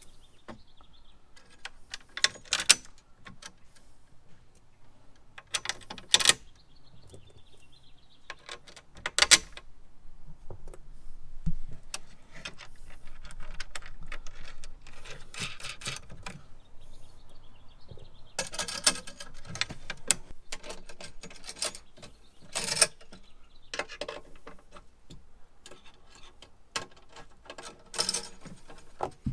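Irregular metallic clinks and rattles of hand tools and screws while a metal tank-mounting bracket is bolted on with an Allen key and wrench. Now and then there is a sharp, louder clank.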